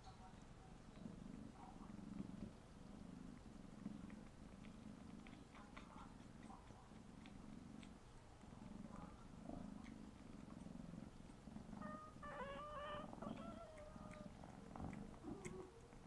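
Tabby kitten purring while it kneads, a faint low rumble that swells and fades with each breath, with small wet lip-smacking clicks scattered through it. A brief wavering higher-pitched call sounds about twelve seconds in.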